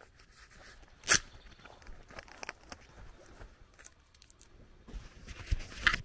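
Leaves and branches of a bush brushing and rustling against the microphone in a few sharp scrapes. The loudest comes about a second in, and a cluster follows near the end.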